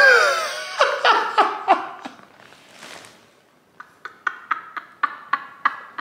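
A man and a woman laughing hard: a loud burst of laughter at the start, then short laughing pulses that fade to quieter, breathy laughter in the middle and pick up again as quick short bursts in the second half.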